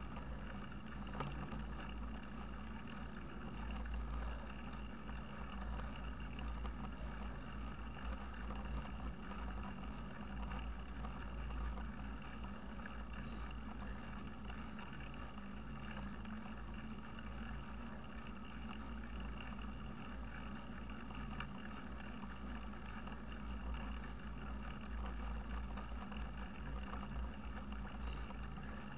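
Steady low rumble of wind on the microphone mixed with the tyre noise of a mountain bike rolling along a paved road.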